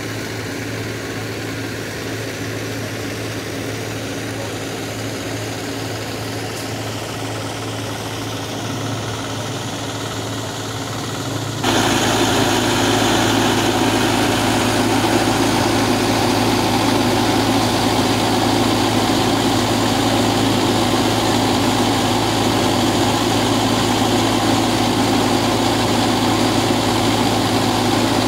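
Mahindra tractor's diesel engine running steadily under load, driving a PTO-shaft Crisafulli water pump. It gets suddenly much louder a little under halfway through, heard up close.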